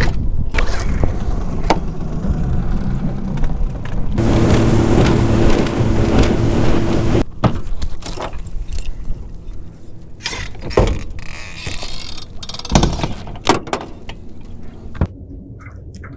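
Bow-mounted electric trolling motor humming for about three seconds and then cutting off, followed by scattered knocks and handling noise on the boat's deck.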